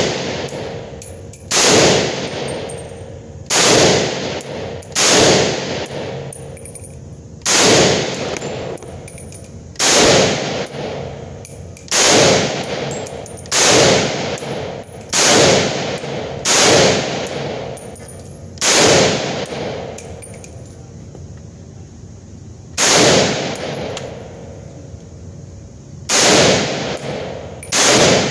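AK-47-pattern rifle firing single shots at a slow, uneven pace: about thirteen shots, mostly one every one to two seconds with a longer pause of about four seconds past the middle. Each shot rings on in the echo of an indoor shooting booth.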